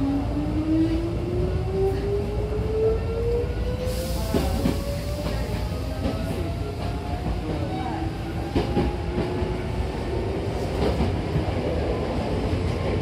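Hankyu electric train accelerating. The traction motors' whine climbs steadily in pitch, then drops and climbs again about eight seconds in. Underneath run the rumble of the car and scattered clicks from the wheels on rail joints.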